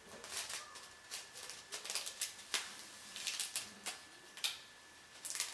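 Plastic bottle being jiggled and tapped to pour out a slime ingredient: a string of irregular clicks and taps.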